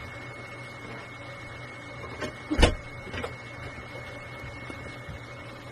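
Three short knocks over a steady background hum, the middle one a loud thump about two and a half seconds in.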